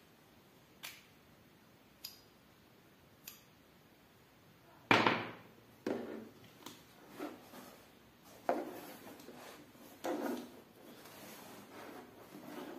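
Cardboard shipping box handled on a tabletop: three light clicks about a second apart, then from about five seconds in a series of knocks and scuffs as the box is picked up, turned and set down, with faint rubbing near the end.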